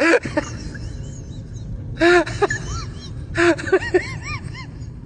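A person whimpering and wailing in short rising-and-falling cries. The cries come in bouts about every second and a half, each opening with a sharp gasping breath.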